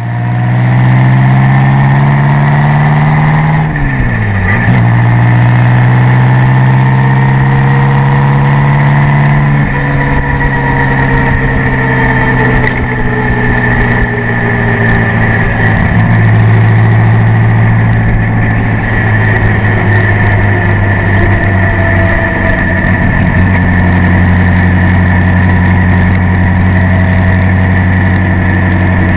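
Supercharged straight-eight engine of a 1927 Bugatti Type 35B running loud under way, revs climbing at first, with a quick dip and recovery about four seconds in and a drop in revs about ten seconds in, then holding fairly steady.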